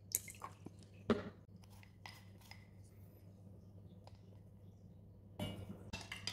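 Small handling clicks and knocks of a plastic measuring spoon, a plastic vinegar bottle and a ceramic canister against a glass measuring jug, the loudest about a second in. About five seconds in, the spoon starts stirring in the glass jug, scraping and clinking as it dissolves sugar into vinegar water.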